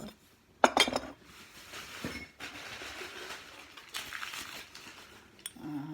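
A sharp knock, like china being set down, then several seconds of uneven rustling as packing material is handled while the next item is unwrapped from the box.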